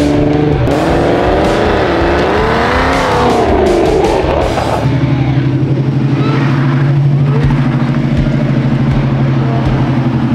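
Car engine revving, its pitch rising and falling several times, then settling about five seconds in to a steady, loud low-pitched running note with a fine pulsing.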